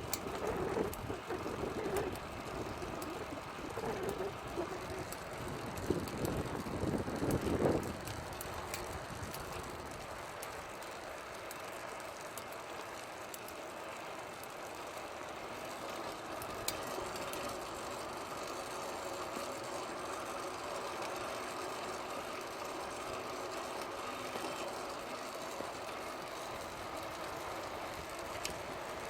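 Fixed-gear bicycle drivetrain running: chain, chainring and cog turning together with a steady whir, its normal running noise after a chain tension and alignment adjustment and fresh lube. The first eight seconds are louder and uneven, with a few knocks.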